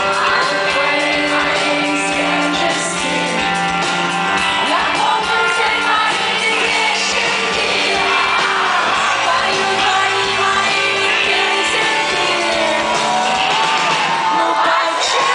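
Live rock band playing in a large hall (electric guitar, drums and keyboards, with a female lead vocal), heard from inside the audience. Fans near the microphone shout and whoop over the music.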